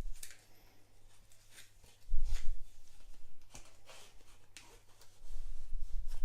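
Handling sounds of a lock pick set: scattered light clicks and ticks of small metal picks and tension tools being moved about, with dull low bumps about two seconds in and again near the end.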